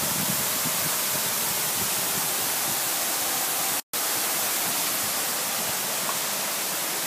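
Steady, even hiss with no distinct events, cut off completely for a split second about four seconds in.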